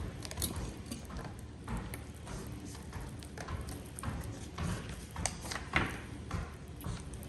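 Slime being squeezed and worked by hand, giving irregular small clicks, pops and squelches.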